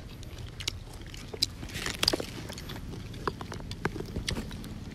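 Scattered, irregular crisp crackles and crunches of raw cabbage leaves and singju salad being handled and eaten.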